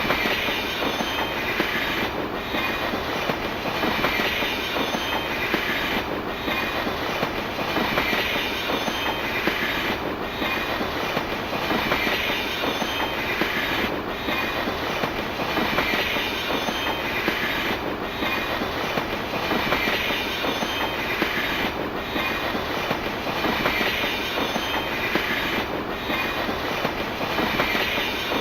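Train running on rails, a steady rolling clatter from the wheels with a pattern that repeats about every two seconds.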